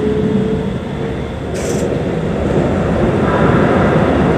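Keikyu New 1000 series train with a Siemens GTO inverter ('Doremifa inverter') running at speed. Wheels and rails rumble under a thin traction-motor whine that rises slowly in pitch, with a short hiss about a second and a half in. The running noise grows louder about three seconds in as the train enters a tunnel.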